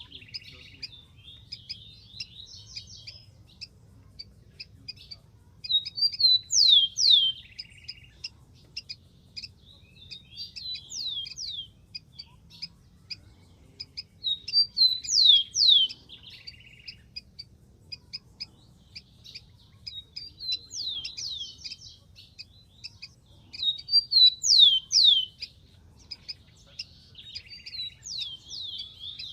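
Rufous-collared sparrow singing: repeated short songs of a few clear, steeply falling whistles, some with a brief buzzy trill, a new song every few seconds.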